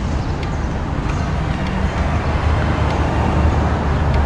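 Steady low rumble of road traffic passing by.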